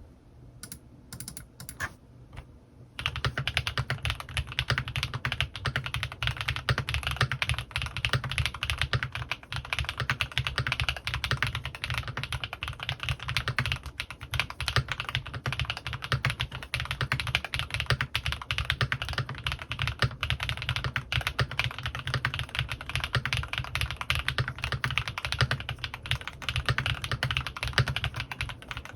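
Typing on a CannonKeys Rekt1800 mechanical keyboard with lubed Gateron Pure Berry linear switches and PBT keycaps: a few single keystrokes, then from about three seconds in, fast continuous typing.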